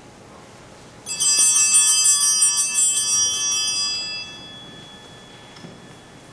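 A set of altar bells shaken for about three seconds, starting about a second in, then ringing out and fading. They are rung at the priest's communion from the chalice.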